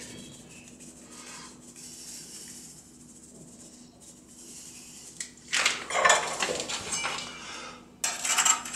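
Metal spatula scraping and knocking against an aluminium baklava tray, a short clattery run starting a little past halfway and more again near the end, with only faint hiss before it.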